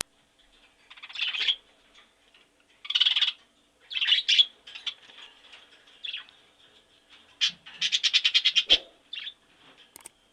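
Small songbird calling in short rattling bursts with pauses between them, and a longer fast trill about eight seconds in.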